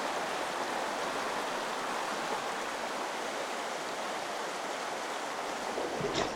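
Clear mountain creek water rushing steadily, an even hiss of flowing water. Near the end come a couple of short, sharp sounds.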